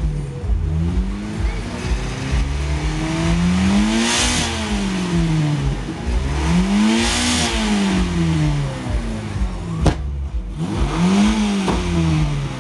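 Modified VW Golf Mk2 revved hard three times while standing still, each rev climbing to a peak and dropping back, for an exhaust loudness (decibel) measurement. A single sharp crack comes about ten seconds in.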